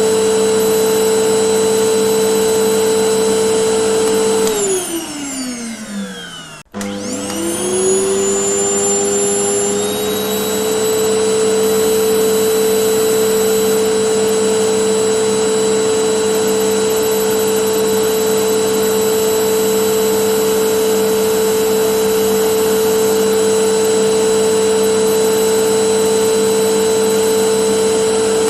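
Vacuum cleaner motor running with a steady whine, switched off about four seconds in so that it winds down in pitch, then switched back on about two seconds later, spinning up with a rising whine and settling back to a steady run.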